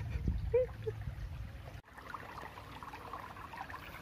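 A few low handling knocks in the first two seconds, then, after a cut, shallow water trickling and lightly splashing around a hand holding a clear plastic bag in it.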